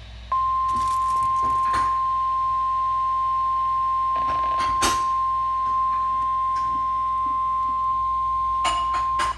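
Emergency alert attention signal: a single steady high-pitched tone, the National Weather Service 1050 Hz warning alarm tone. It holds for about nine seconds and cuts off abruptly, announcing that a severe thunderstorm warning is about to be read.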